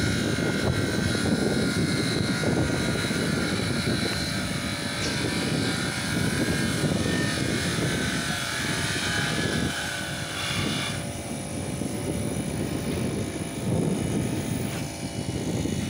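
Wind buffeting the microphone in an uneven low rumble, over a steady high machine whine that cuts off suddenly about two-thirds of the way through.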